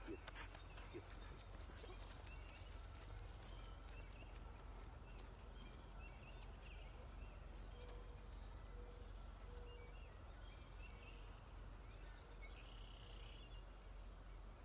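Quiet outdoor ambience: faint bird chirps scattered over a low steady rumble, with a few light clicks in the first couple of seconds.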